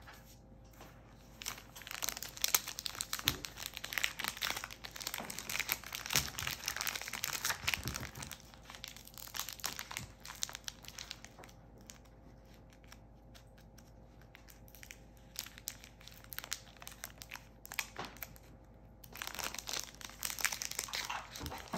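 Foil wrapper of a 2022 Panini Mosaic football card pack crinkling and tearing as it is ripped open by hand. The crackling comes in irregular bursts, dies down in the middle and picks up again near the end.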